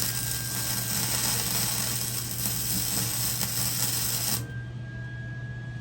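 Welding arc crackling steadily as a weld is laid on the steel of a smoker grill, cutting off sharply about four seconds in, over a steady electrical hum.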